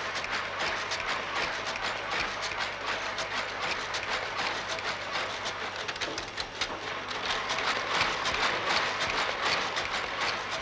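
Book-stitching machine running, clattering with a rapid, continuous run of mechanical clicks over a steady low hum.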